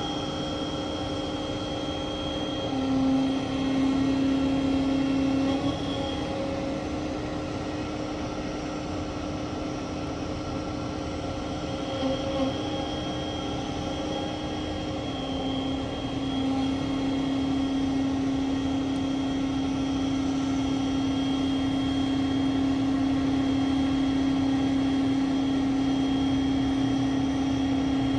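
Truck-mounted hydraulic crane's engine and hydraulic drive running steadily: a constant mechanical hum with a clear tone that drops slightly in pitch about three seconds in and again around sixteen seconds in, as the engine speed shifts.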